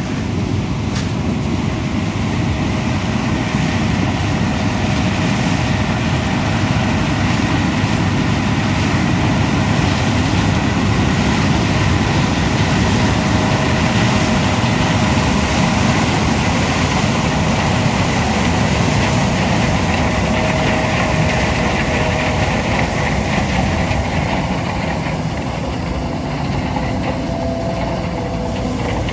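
Heavy diesel farm machinery running steadily, a continuous engine drone with a faint steady whine over it.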